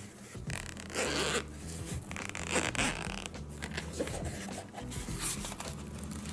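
Zipper of a small AmazonBasics hard-shell carrying case being pulled round to open it, in three short zipping strokes.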